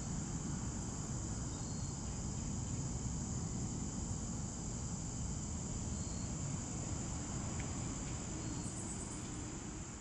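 Steady, unbroken high-pitched chorus of insects trilling in grass, with a low outdoor rumble beneath it.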